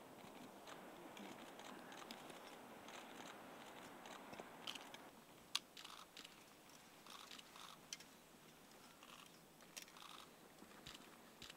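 Faint crunching swish of legs wading through deep fresh snow. After about five seconds come a few light clicks and taps of metal snow-sampling tubes being handled, with one sharp click the loudest.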